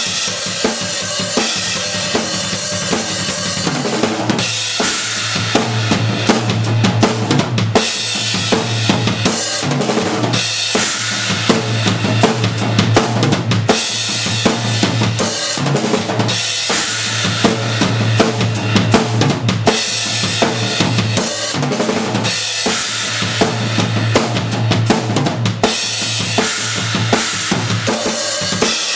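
Rock drum kit played hard and fast, with a dense run of bass drum, snare and cymbal hits. The bass drum keeps up an almost unbroken low pulse through most of the stretch.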